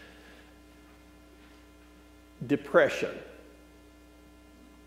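Faint, steady mains hum, several held tones at once, with a man speaking one word about halfway through.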